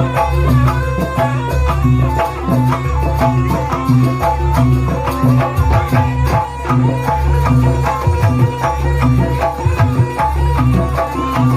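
Jaranan music: a loud Javanese folk ensemble with hand drums beating a fast, steady rhythm under a pitched, ringing melody.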